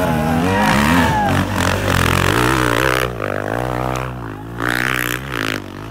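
Enduro dirt bike engine revving up and down repeatedly as the rider works the throttle up a steep dirt climb. It is loudest for the first few seconds, then somewhat quieter.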